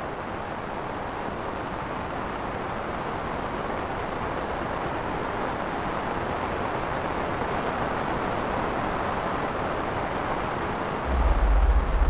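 Ambient music track: a steady wash of surf-like noise that slowly swells, with a deep bass coming in about eleven seconds in.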